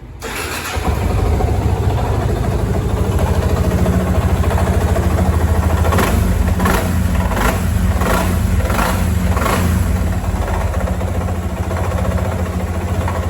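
Yamaha Fazer 250's single-cylinder engine running at idle, with a series of about six sharp strokes, roughly one every 0.7 s, a little past the middle. This is the engine noise that the owner of the new bike is showing as a problem.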